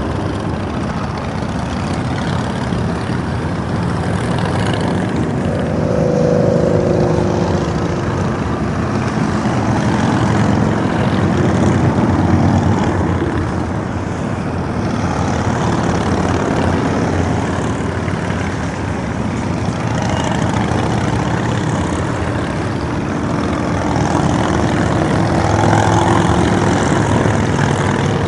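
Motorcycles, mostly large touring bikes, passing one after another along a highway in a long procession. Their engine noise is steady and rises and falls as each group goes by.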